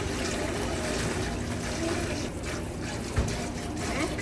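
Kitchen tap running water into the sink, a steady hiss of flowing water, with a single knock about three seconds in.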